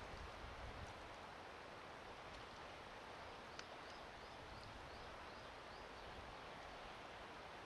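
Steady wind noise with some low rumble, and a small bird calling a quick run of about seven short, high, repeated notes near the middle.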